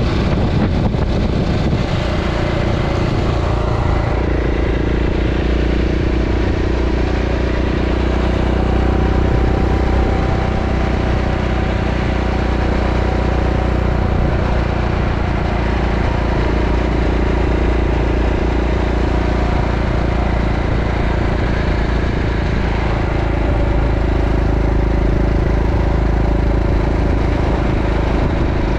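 Motorcycle engine running at a steady cruise on the open road, with a constant low wind rumble on the microphone.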